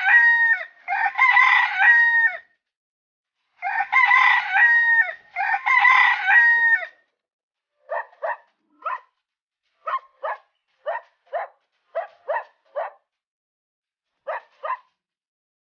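A rooster crows twice, each long crow in two parts. From about eight seconds in, short sharp animal calls follow, mostly in pairs.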